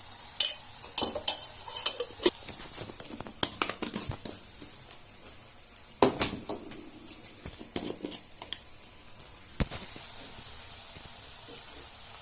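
A spoon clinking and scraping against an iron kadhai as garlic and spices are stirred in hot oil, with a steady sizzle underneath. The strokes come thick and fast over the first few seconds, then a loud knock about six seconds in and another near the end.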